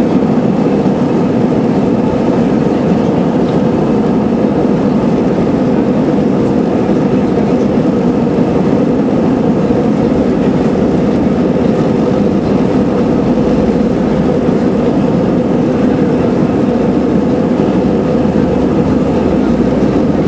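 Airbus A320 on its takeoff roll, heard from inside the cabin: the jet engines at takeoff thrust, a loud, steady, unbroken noise.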